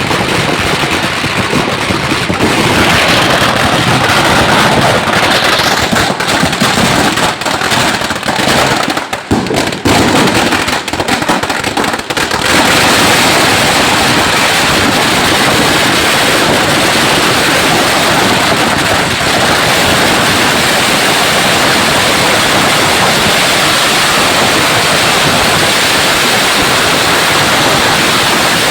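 Firecrackers going off in a dense, continuous crackle. For a few seconds around the middle of the first half the bangs can be told apart, then they merge into an unbroken rattle.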